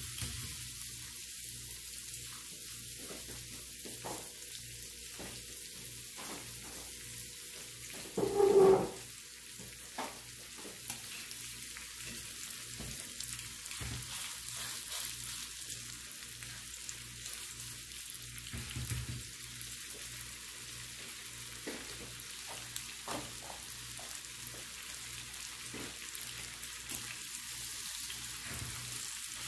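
Beef pot roast sizzling steadily as it browns in an electric skillet, with scattered clicks and scrapes of metal tongs turning the meat. A brief louder sound about eight seconds in.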